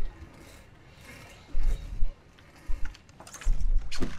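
Gusts of wind buffeting the microphone in several low rumbling bursts, with scattered sharp clicks from the fishing rod and reel being worked against a hooked shark.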